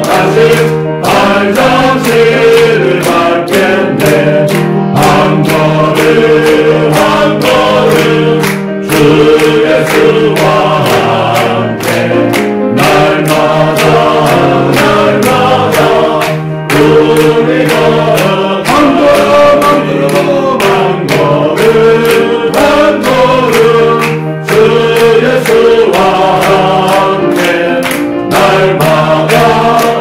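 A congregation singing a hymn together and clapping along on the beat, about two to three claps a second.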